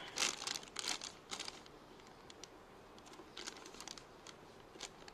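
Crinkling rustle and scattered light clicks of things being handled, busier in the first second and a half and then sparse.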